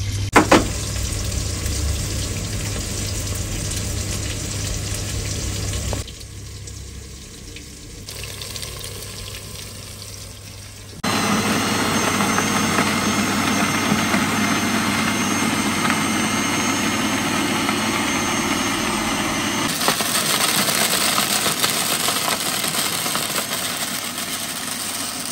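Countertop blender motor running steadily through the second half, blending a liquid mixture. Before it comes a steady kitchen hum, which drops quieter for a few seconds.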